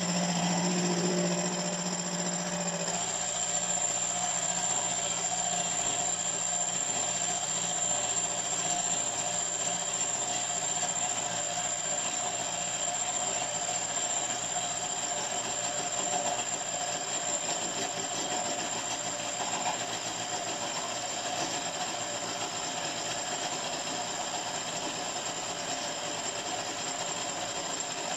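Bench milling machine running, its face cutter flattening the top of a cast cylinder block as the work feeds slowly under the spindle. A steady high whine sits over the cutting noise, and the low tone changes about three seconds in.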